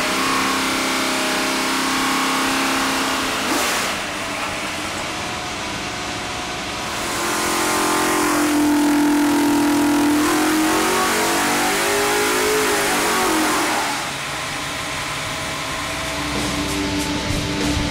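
451 cubic inch Ford Windsor V8 with alloy Cylinder Head Innovations 3V heads running loud at high revs on an engine dyno. Past the middle it climbs in pitch through a full-throttle pull and falls back.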